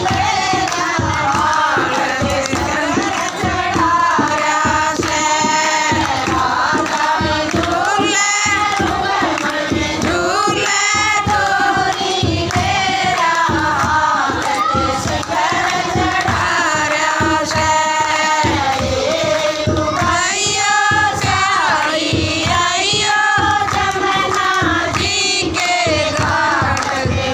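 A group of women singing a devotional bhajan together, with hand clapping keeping a steady beat.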